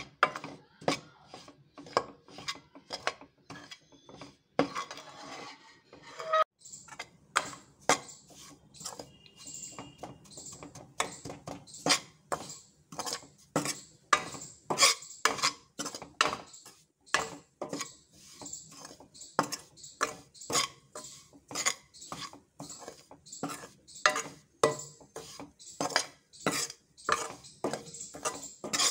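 Steel spoon scraping and knocking against a kadhai while ground coriander is stirred and dry-roasted on a low flame: repeated short scrapes and clinks, roughly one to two a second.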